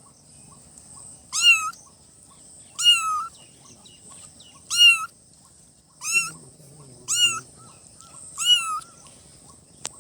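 Young kitten meowing, six high-pitched meows that rise and fall, each about half a second long and one to two seconds apart. A sharp click comes near the end.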